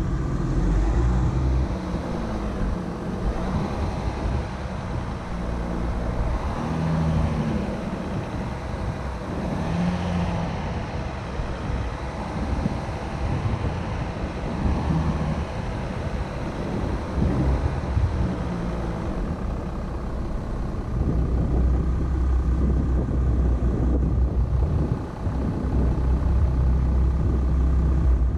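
Volkswagen Amarok pickup's engine running at low, varying revs as it crawls over off-road terrain, over a rough rumble from the vehicle and ground. The low rumble grows heavier over the last seven seconds or so.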